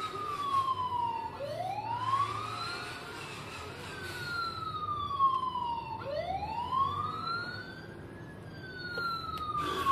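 Electronic siren sound effect from the Huina 1561 RC fire truck's speaker, wailing over and over: each cycle rises quickly in pitch, then falls slowly, repeating about every four and a half seconds.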